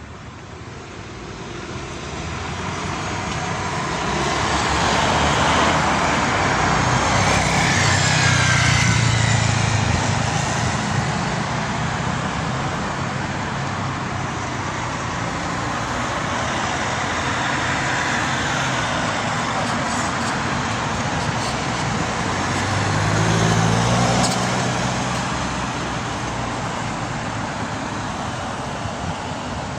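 Road traffic: cars and a van driving past close by, one after another, their engine and tyre noise swelling and fading as each goes by. It is loudest about a quarter of the way in and again about three quarters of the way in.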